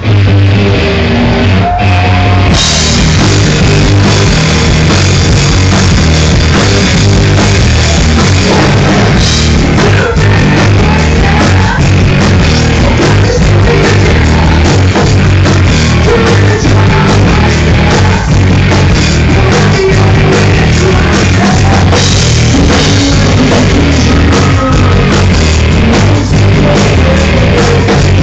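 A rock band playing live and very loud, with guitars and a drum kit driving a steady beat.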